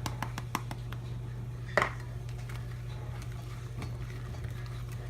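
Pepper being added to the zucchini: a quick run of light, evenly spaced clicks, about five a second, that stops within the first second, then a single sharper clink about two seconds in. A steady low hum runs underneath.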